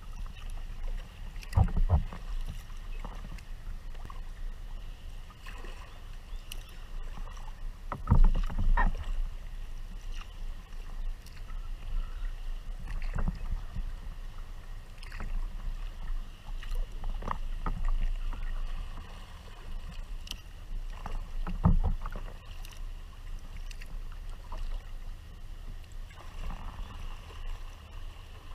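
Water lapping and sloshing against a Tempest 170 sea kayak's hull, heard close from its deck, over a low steady rumble, with a few irregular louder slaps.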